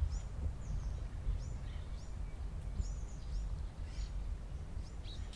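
Small woodland birds calling: repeated short, high chirps that slide downward in pitch, over a steady low rumble.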